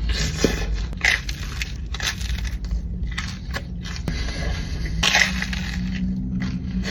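Thin, charred pizza crust crunching as it is bitten and chewed, in a string of irregular crunches.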